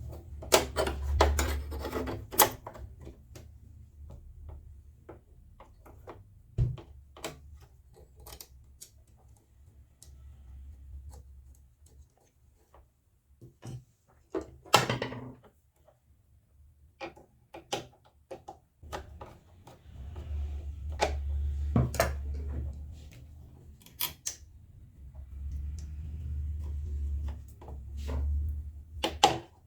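Scattered clicks, taps and knocks of small metal and plastic parts being handled as the needle plate is fitted onto a plastic Janome sewing machine, with a low handling rumble at times.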